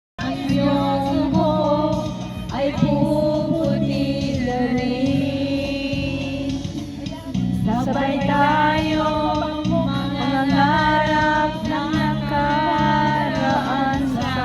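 Background music: a song with sung vocals over a repeating bass line.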